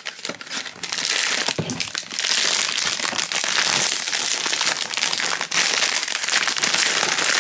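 A silver foil blind bag, like a chip bag, crinkling and crackling continuously as hands pull it from a cardboard box and work it open. Cardboard flaps tick and rustle in the first couple of seconds, and the crinkling gets louder and steadier from about two seconds in.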